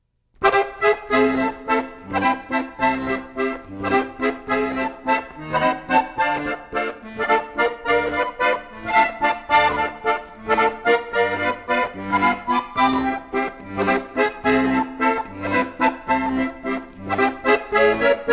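Instrumental opening theme music with a melody over a bouncy, rhythmic bass line, starting a moment in.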